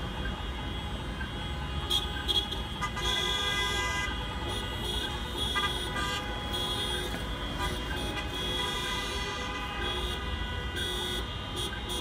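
Many car horns sounding together from a protest convoy of passing cars, some held long and others in short toots, over the low rumble of traffic. The loudest blasts come about two seconds in.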